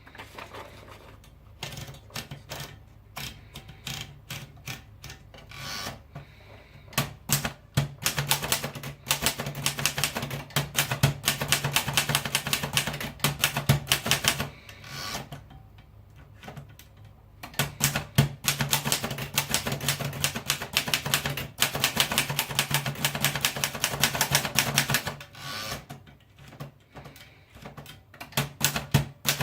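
Remington Rand typewriter being typed on: long runs of rapid key strikes, with a few pauses of a second or more, over a steady low hum.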